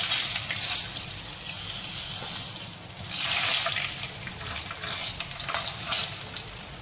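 Hot oil sizzling in a frying pan while pieces of fried fish are lifted out with a spatula. The sizzle swells at the start and again about three seconds in.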